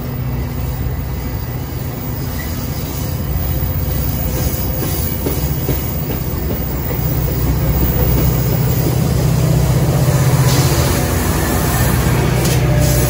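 Metra commuter train rolling past at a platform: stainless-steel bilevel cars with wheel and rail noise, then the rear EMD F40PH diesel locomotive pushing under power, its engine hum growing loudest near the end.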